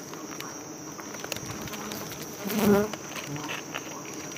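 Wild honeybees buzzing steadily around their open comb, with small clicks throughout. A louder, closer buzz with a bending pitch comes a little past halfway through, as if one bee passes right by the microphone.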